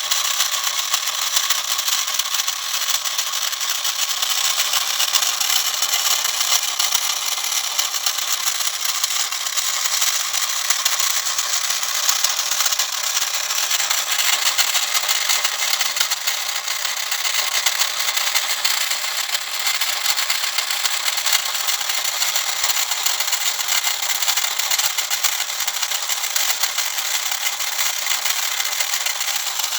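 Braskit battery-powered toy locomotive running: a steady, fine rattling whirr from its small motor and gears, with nothing low in the sound.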